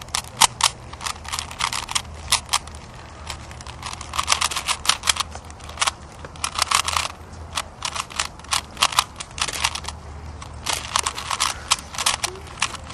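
Rubik's cube turned fast in a speedsolve: quick runs of sharp plastic clicks and clacks as the layers snap round, with short pauses between the runs.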